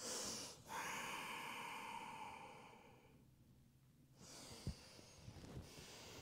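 Faint audible breathing of a woman: a long breath that fades out over about two and a half seconds, then a second, quieter breath about four seconds in, with a soft low knock during it.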